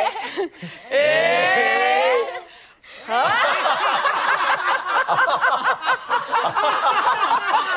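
A group of people laughing out loud together in a laughter yoga exercise. About a second in, one voice rises in pitch; from about three seconds many voices laugh at once, overlapping.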